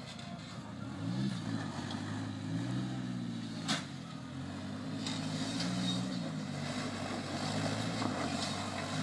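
An off-road Jeep's engine revs up and down again and again while the Jeep crawls up over boulders. A single sharp knock comes a little under four seconds in.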